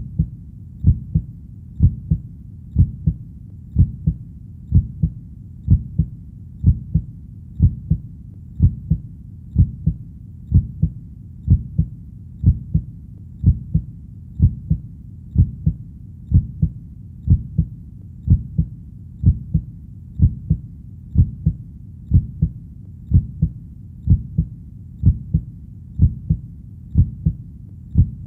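Heartbeat, a low lub-dub double thump repeating steadily about once a second.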